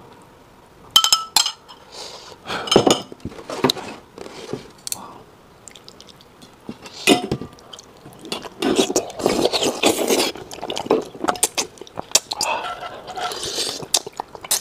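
A spoon clinking against a glass bowl a few times in the first three seconds, then close-up eating sounds: sucking and chewing on braised yellow catfish, in bursts from about seven seconds in.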